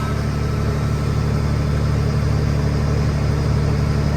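Case IH 8940 tractor's diesel engine idling steadily, running again after its hoses were replaced.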